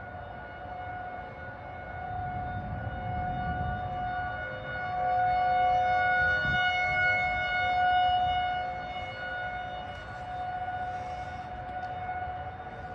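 Outdoor tornado warning siren sounding at a steady pitch, swelling louder through the middle and fading again.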